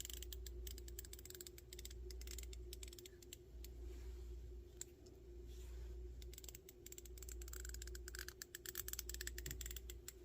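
Icon G2 1/4-inch drive ratchet freewheeling, its pawl clicking rapidly over the gear teeth in several short runs as the head is spun to test back drag, which is low.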